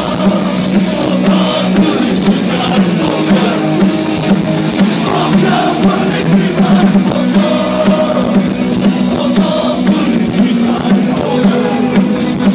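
Live rock band playing loud, with singing.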